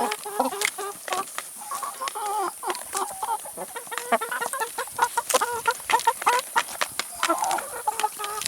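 Several chickens clucking over and over while feeding, with frequent sharp taps of beaks pecking at vegetables.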